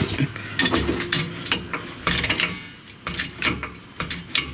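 Irregular metallic clanks, clinks and rattles of a floor jack being handled on a concrete floor, with a few sharp knocks every second over a low rumble.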